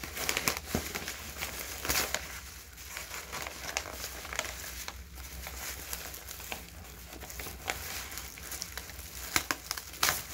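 Newspaper packing paper crumpling and rustling as it is pulled out of a plant shipping box and handled, an irregular run of crackles with sharper crunches near the start and near the end.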